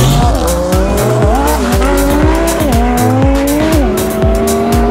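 A high-powered race car accelerating hard at full throttle: the engine's pitch climbs and then drops sharply at each upshift, three shifts roughly a second apart, over background music.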